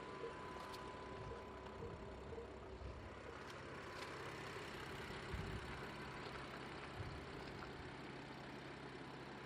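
BMW M4's 3.0-litre twin-turbo straight-six idling steadily with a low, even hum.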